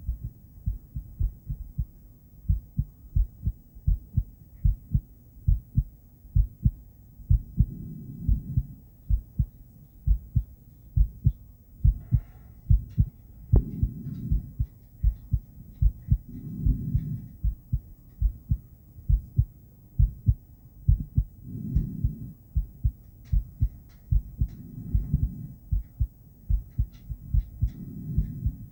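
A woman's heartbeat picked up by a handheld ultrasonic Doppler device: a steady rhythm of short, low thumps, with a low whooshing that swells and fades every few seconds.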